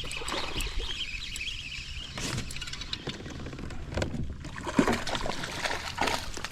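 Water splashing and sharp knocks on a kayak as a bass is landed and handled aboard.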